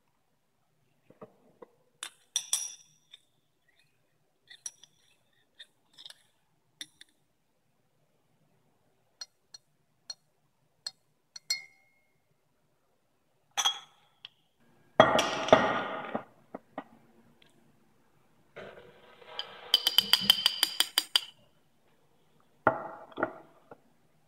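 Tiny explosions as manganese heptoxide, formed from potassium permanganate in concentrated sulfuric acid, violently oxidizes the ethanol floating above it: sharp pops and crackles. Scattered single pops for the first dozen seconds, then louder crackling bursts about 15 seconds in, a rapid run of pops around 20 seconds and another burst near the end.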